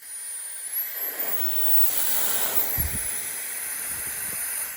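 Cordless electric air duster's brushless turbo-fan motor running, a thin high whine over rushing air. The whine climbs in pitch about a second in, drops back down near the three-second mark, and the blower winds down at the end.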